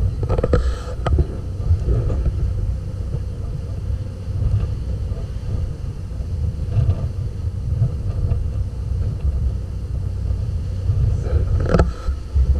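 A motor boat under way: a fluctuating low rumble of wind buffeting the action-camera microphone and the engines running.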